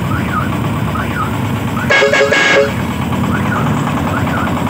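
Diesel engine of a công nông farm truck running steadily on a test drive. A vehicle horn sounds twice briefly about two seconds in.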